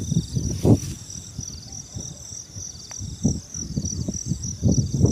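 Wind buffeting the microphone in uneven low rumbling gusts, over a steady high pulsing trill of insects.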